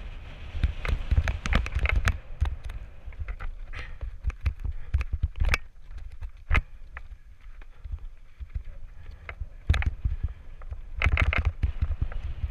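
Mountain bike rolling down a rocky dirt trail: tyres crunching over stones and the bike rattling with frequent sharp knocks, over a steady low wind rumble on the helmet camera's microphone. The knocks thin out through the middle and come thick again near the end.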